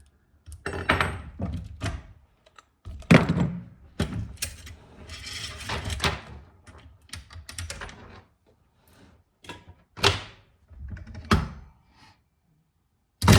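Irregular knocks, thunks and clatter of a chainsaw and hand tools being handled and set down on a workbench.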